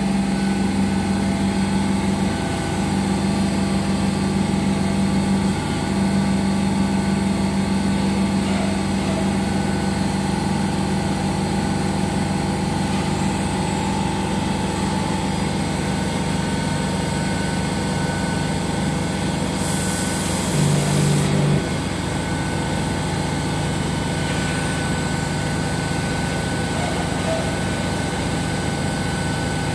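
Small CNC wood lathe running: a steady motor hum with the tool cutting a spinning wooden spindle. About twenty seconds in there is a louder stretch lasting about a second and a half.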